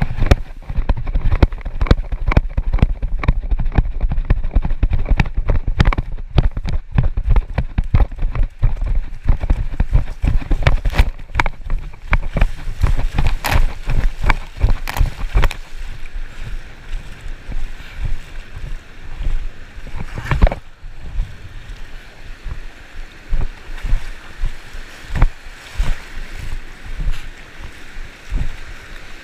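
Shallow sea water sloshing and splashing around a GoPro in its housing as it is carried through the surf. Many dull thumps and rumbles sit close to the microphone, heaviest in the first half, with the hiss of breaking waves behind.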